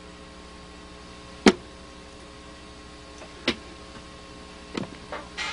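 Steady low hum and hiss with several sharp clicks, the loudest about a second and a half in and a few smaller ones later.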